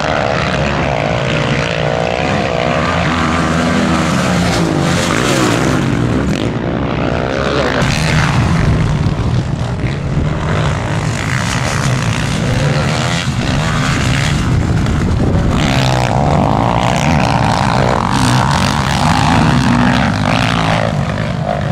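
Motocross dirt bike engines running hard on the track, their pitch rising and falling repeatedly as the riders open and close the throttle through jumps and turns.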